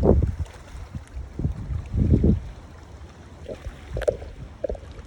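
Gusts of wind buffeting the microphone in a few low rumbling bursts during the first couple of seconds, then easing to a steady hiss of river water lapping.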